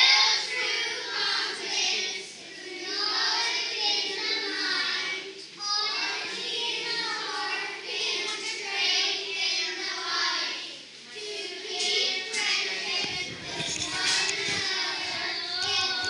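A group of young children's voices in unison, in a sing-song chant with short pauses between phrases.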